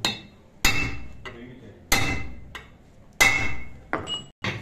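Heavy hand hammer striking a steel rivet punch to set the rivets fastening new lining to a truck brake shoe. Three heavy blows about a second and a quarter apart, each with a short metallic ring, with lighter taps between them and near the end.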